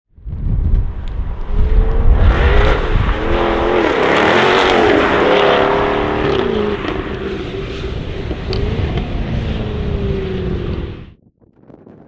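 Jaguar F-Type V8 S's supercharged 5.0-litre V8 accelerating hard on the exhaust, revs rising and falling through gear changes, with a few sharp crackles. It fades as the car pulls away, then cuts off suddenly just after eleven seconds.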